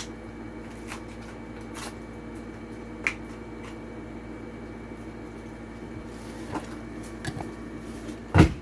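Scattered clicks and crinkles of a toy car's plastic blister pack and card being handled and pried open, over a steady low hum, with one louder knock near the end.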